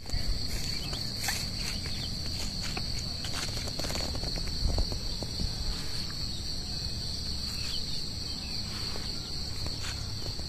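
A steady, high-pitched insect drone holding one note, with footsteps and scuffs on a footpath.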